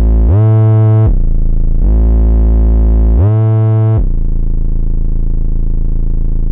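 Synthesizer music: a deep sustained bass note that twice slides up to a higher note and back down, each time for under a second, then holds a steady low drone.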